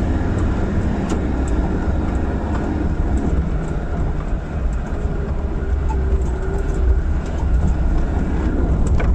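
Land Rover Defender Td5's 2.5-litre five-cylinder turbodiesel engine running as the vehicle drives over a rough dirt track, a steady low drone with light clicks and rattles over the bumps, heard from inside the cabin.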